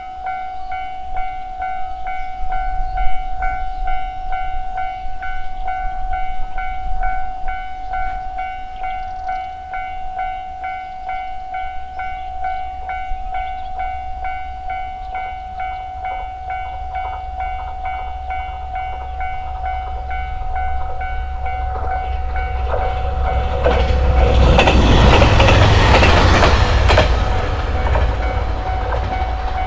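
Japanese level-crossing warning bell ringing steadily while a diesel train approaches, then passes over the crossing about two-thirds of the way in, its wheels clacking over the rail joints loudly for a few seconds. The bell stops just before the end.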